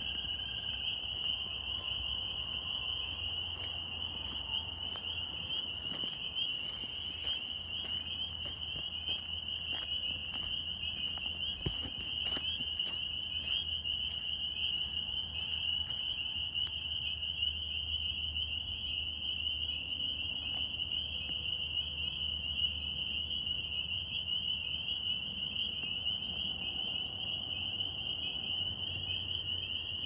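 A dense chorus of northern spring peepers: many high-pitched peeps overlapping into one steady, unbroken ring.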